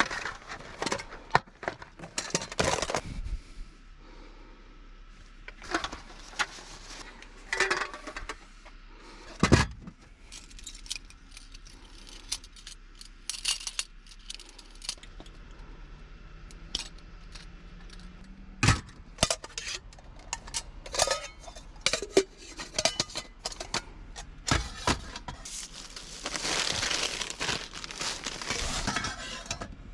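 Objects being handled at close range: scattered clicks, clinks and knocks, with a longer stretch of rustling noise near the end.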